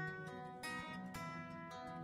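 Background music of plucked acoustic guitar, single notes and chords ringing and fading.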